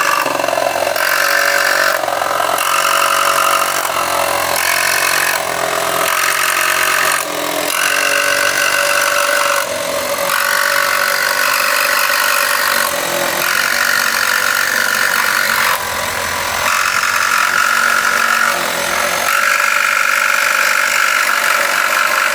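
Reciprocating saw running continuously, its Diablo AMPED Demo Demon carbide-tipped blade cutting through wood embedded with hardened concrete fluted masonry nails. The saw is weighted, so the blade is not guided by hand. The level dips briefly a few times.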